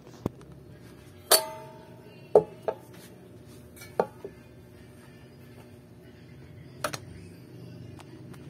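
Scattered sharp knocks and clinks from handling an electric guitar body and small tools on a workbench. About seven strikes come at uneven intervals, the loudest about two and a half seconds in, and one near one and a half seconds in rings on briefly with a metallic tone.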